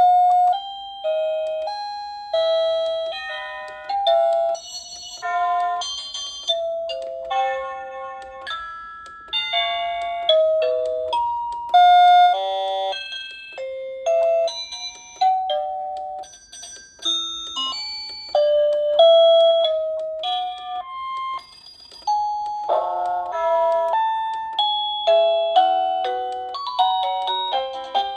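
SadoTech wireless doorbell receiver playing its chime tunes one after another, each a short electronic bell-like melody through its small speaker, a new tune starting every two seconds or so as it is stepped through its 52 tones.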